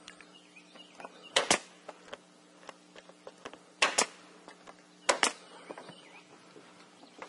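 Pneumatic nail gun firing three times into a cedar shingle, each shot a sharp double crack, the shots a little over a second to two and a half seconds apart.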